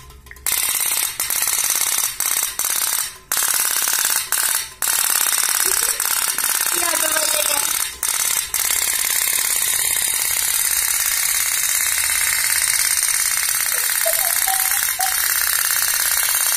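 Pop-pop boat toy's little candle-heated steam engine running, a fast, continuous putt-putt rattle. It breaks off briefly several times in the first few seconds, then runs steadily.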